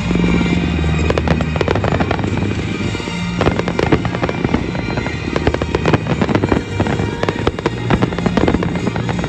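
Fireworks going off in rapid, dense bangs and crackles, with music playing along underneath.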